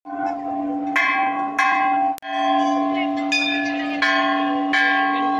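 Large hanging brass temple bell rung by hand, struck about seven times at roughly one stroke a second, each stroke ringing on over the last in a steady low hum with brighter overtones.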